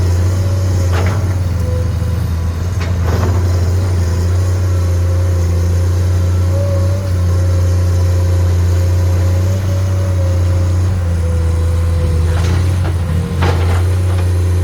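Komatsu PC210 excavator's diesel engine running steadily under load with a steady whine over it. A few short scraping clanks come about a second in, around three seconds in, and twice near the end.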